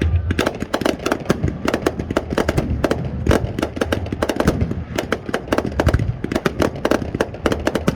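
Aerial fireworks display: a dense rapid crackle of many sharp bangs several times a second, with deeper booms of shell bursts about the start and again around six seconds in.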